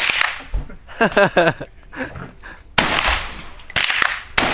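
Rifle shots fired one after another: one shot at the start, then three more in quick succession over the last two seconds, each with a short echo.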